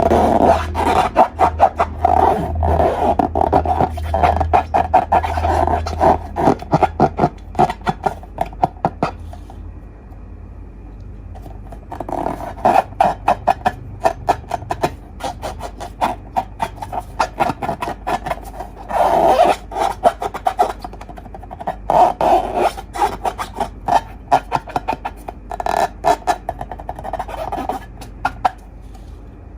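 Slime being squeezed and stretched by hand, giving fast runs of sticky clicks and crackles in bursts, with a quieter pause about ten seconds in.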